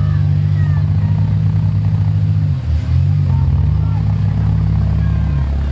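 Demolition derby car engine running hard under load, its pitch dropping and picking up again twice, about two and a half seconds in and near the end.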